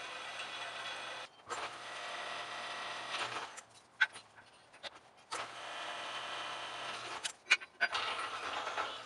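Drill press running with its bit cutting into a steel railroad-spike hook: a steady motor hum and grinding hiss. The running sound breaks off twice for a second or two, and in those pauses sharp metal clanks are heard as the hook and clamp are handled on the steel table.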